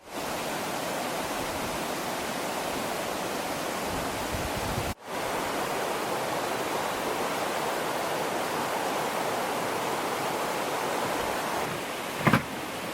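Steady rushing noise of water, even and unbroken apart from a sudden cut about five seconds in. A short knock sounds near the end.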